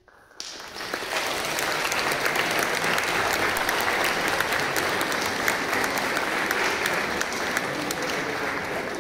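Audience applauding, breaking out about half a second in and easing off slightly near the end.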